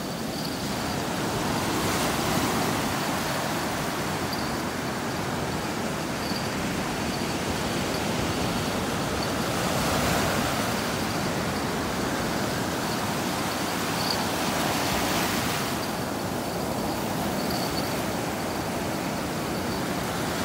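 Pacific surf breaking and washing up a sandy beach: a steady rush of white water that swells louder several times as waves come in.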